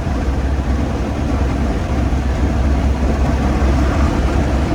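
1931 Ford Model A's four-cylinder engine running steadily at about 48 mph, with a strong low rumble and road and wind noise. It is running well, its misfire cured.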